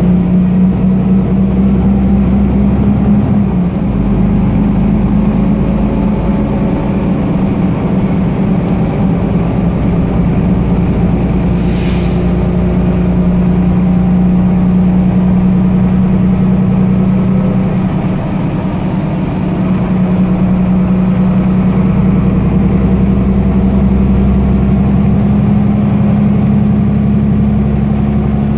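A Solaris Urbino 18 III articulated city bus's DAF PR228 six-cylinder diesel engine running steadily while the bus drives, heard from inside the passenger cabin as a low, even hum with road rumble. A brief hiss sounds about twelve seconds in.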